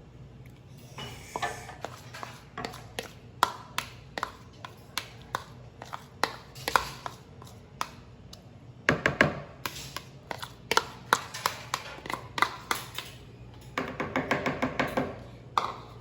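A spoon knocking and scraping against a mixing bowl while margarine is scraped off it into the cake mix. The taps are sharp and irregular, with quicker runs of taps in the middle and near the end.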